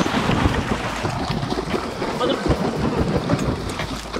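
Wind buffeting the action-camera microphone as a steady rumble, over water rushing and splashing along the hull of a moving boat.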